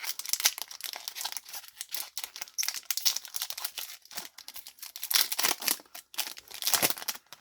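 Foil Yu-Gi-Oh! booster pack wrapper being torn open and crinkled by hand: dense crackling and rustling with quick sharp clicks throughout.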